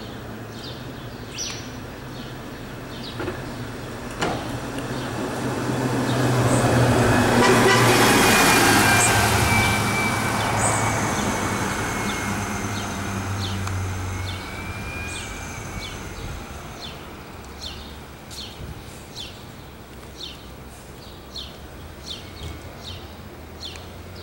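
A New Flyer Xcelsior XN40 compressed-natural-gas city bus driving past: a low engine hum and tyre noise swell to their loudest about eight seconds in, then fade slowly as the bus pulls away. A thin high whine slides slightly down in pitch as it goes by, and birds chirp briefly throughout.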